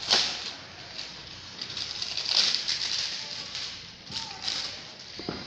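Packaging being handled as the phone's box is opened by hand: irregular rustling, crinkling and scraping, with a sharp snap near the start and further bursts in the middle and toward the end.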